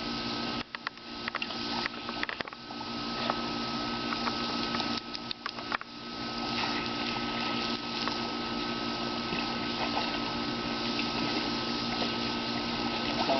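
Steady hiss of hose water spraying and splashing, cutting out briefly a few times in the first six seconds, over a steady low machine hum.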